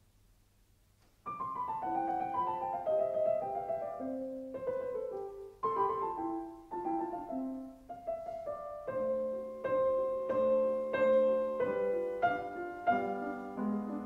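Background solo piano music: after a faint low hum, a piano comes in about a second in and plays a flowing melody of stepping, ringing notes.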